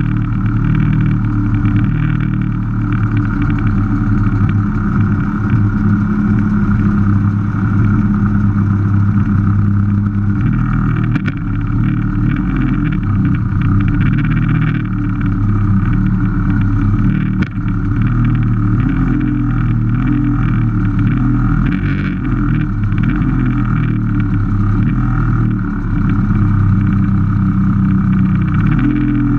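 Several vintage two-stroke Vespa scooters idling together while stopped, their engines running steadily with small shifts in pitch.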